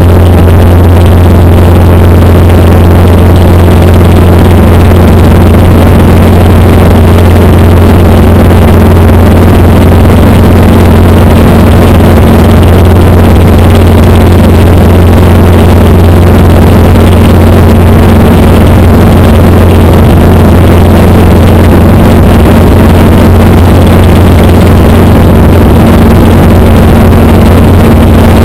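A light helicopter's engine and rotor running in steady cruise, heard from inside the cabin: a loud, unchanging drone with a strong low hum.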